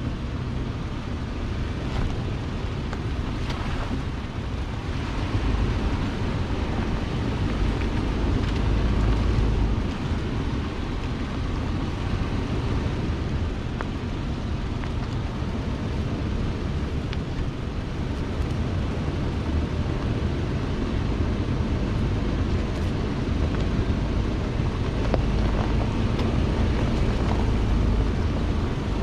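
Off-road vehicle driving slowly along a dirt forest trail: a steady low rumble of engine and tyres, with wind buffeting the microphone. The rumble swells briefly about a third of the way in and again near the end.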